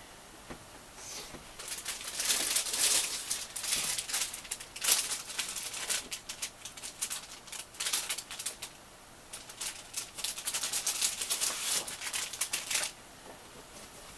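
Sheets of paper and cardstock being handled and shuffled by hand: a quick run of crisp rustles and light taps starting about a second and a half in and stopping near the end.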